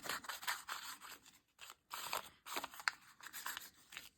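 Scissors cutting paper in runs of short snips, with brief pauses between them.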